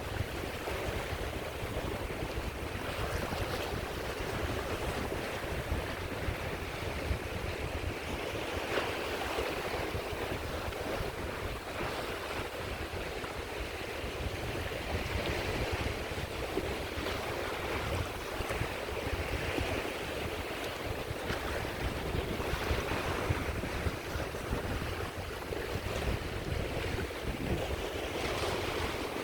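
Sea waves washing onto the shore, the surf swelling every few seconds, with wind on the microphone as a steady low rumble.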